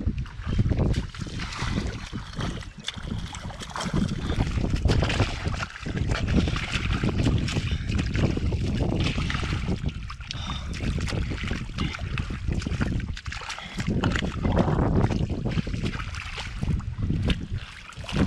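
Hands and arms sloshing through shallow muddy water and squelching in thick mud while grappling for a catfish, with a steady rumble of wind on the microphone underneath.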